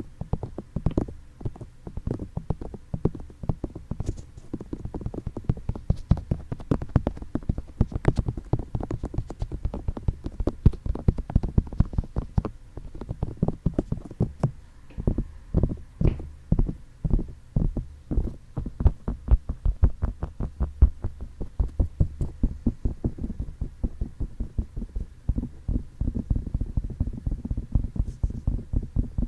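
Fingertips tapping rapidly on a binaural microphone's ears, making dull, low taps several times a second.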